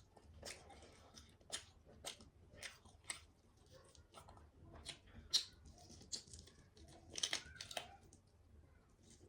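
Close-miked eating sounds: chewing and tearing into food, with sharp wet clicks and smacks at irregular intervals, the loudest about five seconds in.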